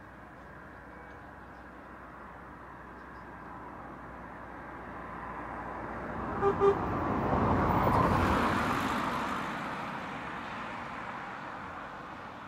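A motor vehicle passing, its noise swelling to a peak about two thirds of the way in and then fading, with two quick toots of its horn just before it is nearest.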